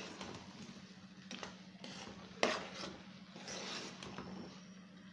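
A metal spoon stirring thick fried beans in a pot, scraping through them and knocking against the pot, with one sharp clink about two and a half seconds in.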